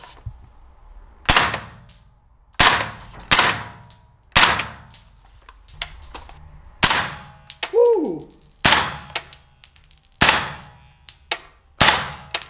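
Single shots of 5.56 mm Arex MTX marking rounds fired semi-automatically from a Heckler & Koch G36 rifle: about eight sharp reports at uneven intervals, each followed by a ringing echo off the range walls. The reports are a lighter pop than live ammunition, as marking rounds lack the loud bang.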